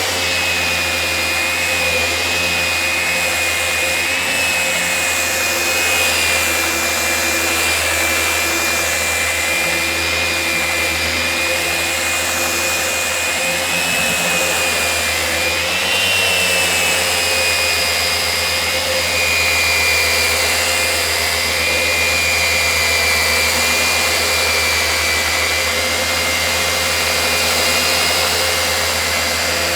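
Festool Rotex 150 random-orbit sander running in its gear-driven rotary (Rotex) mode with 80-grit paper, cutting through the stain on a maple tabletop, with a dust extractor running alongside. It is a steady, loud machine noise with a high whine that wavers slightly in pitch as the load on the pad changes.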